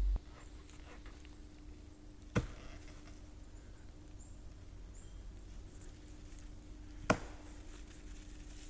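A camping axe chopping into the trunk of a dead pine: two sharp single strikes into the wood, about five seconds apart.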